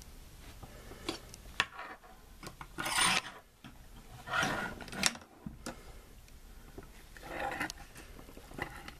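Handling noise: a handful of short, soft rustling and rubbing scrapes a second or so apart as a doll is picked up and moved by hand.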